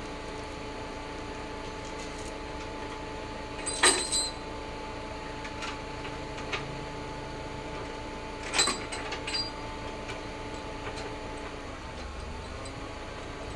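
Forklift engine running steadily, with two sharp metallic clanks about four and eight and a half seconds in, followed by a few lighter knocks. Its note dips slightly near the end.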